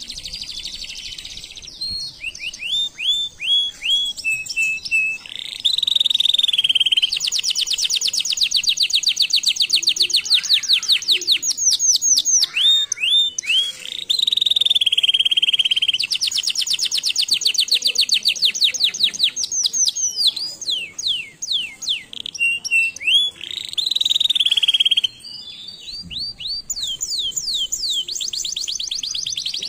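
Crested canary singing a long, loud song: fast trills of rapidly repeated notes alternating with held whistled notes. The song dips briefly near the end, then the trills resume.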